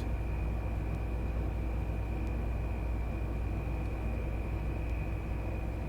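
Steady room tone: a constant low hum with hiss and a faint, thin high whine, unchanging throughout.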